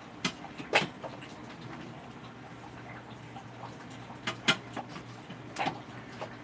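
Serving utensil knocking and clinking against a rice cooker's inner pot as rice is scooped out. There are about five sharp knocks, two near the start and three in the second half, over a low steady hum.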